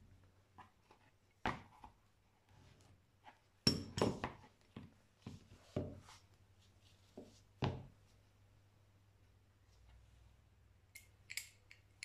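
Metal pipe clamp jaws being handled and set down on a table: scattered clicks and knocks, the loudest cluster about four seconds in, with lighter, higher clicks near the end.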